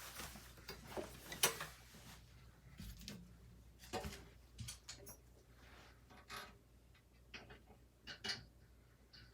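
Scattered small clicks, taps and light knocks of hard parts being handled and fitted, with a steady low hum underneath.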